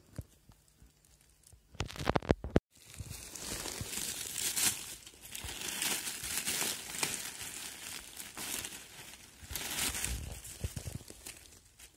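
Dry fallen leaves crackling and rustling as hands push through the leaf litter and pull up a porcini mushroom, swelling in waves over several seconds. A few sharp knocks come just before two seconds in, followed by a split-second of dead silence.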